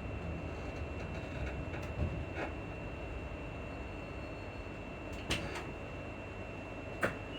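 Inside a Class 334 Juniper electric multiple unit on the move: a steady running rumble with a faint constant high whine. Over it come a few short, sharp squeaks from the suspension, about two, five and seven seconds in.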